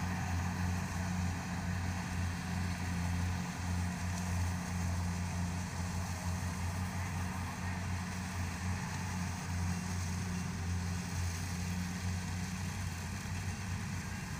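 Diesel engine of farm machinery running steadily, a low, even hum that holds the same pitch throughout.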